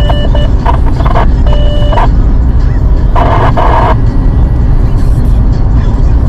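Steady road rumble inside a moving car, with a radio receiver picking up the weather-balloon payload's tracking beacon as short electronic beeps, twice in the first two seconds. A brief noisy burst comes about three seconds in.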